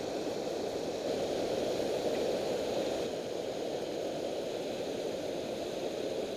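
Water pouring over a low-head dam spillway, a steady rushing noise.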